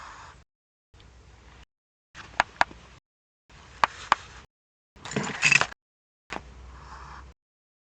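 Choppy webcam audio that drops out completely every second or so. Between the gaps there are faint hiss, a few sharp clicks and knocks, and a louder burst of knocking and rustling about five seconds in.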